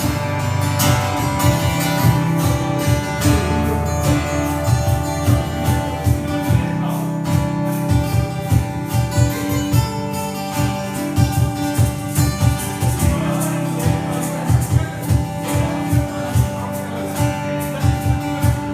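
Instrumental music with an acoustic guitar strumming in a steady rhythm over held backing notes.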